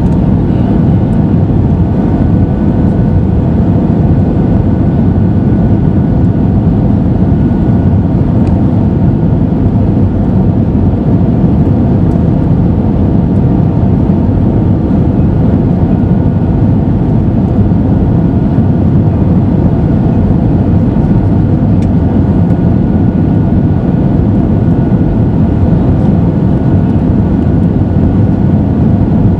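Steady cabin noise inside an Airbus A320 on approach with flaps extended: the roar of airflow and its two CFM56-5B engines, with faint steady whining tones over it.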